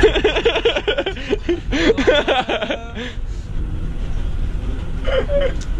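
A small child's high voice chattering and giggling over the steady low rumble of a train carriage.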